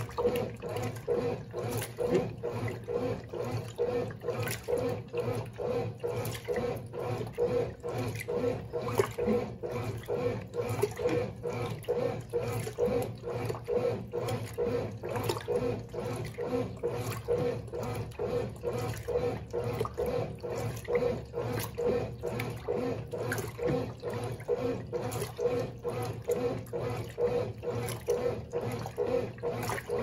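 Brastemp Baby Mondial top-loading washing machine agitating during its soak cycle: the Dual Action agitator swishes back and forth, churning water and clothes in an even rhythm of about two to three strokes a second over a steady motor hum.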